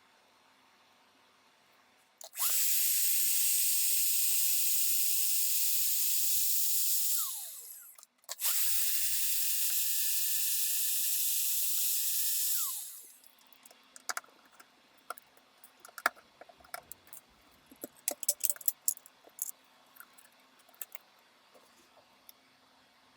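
A small high-speed electric motor tool run twice, about five seconds each time: a loud hiss with a steady high whine that drops in pitch as it spins down. After it come a run of light clicks and taps.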